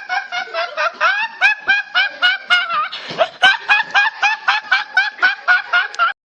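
High-pitched, cartoon-like snickering laugh sound effect: a fast run of short giggling syllables, about five a second, with a breath about halfway through. It cuts off suddenly just before the end.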